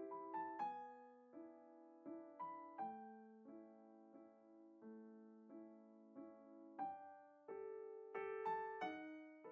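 Background piano music: a slow run of single struck notes, each ringing out and fading before the next.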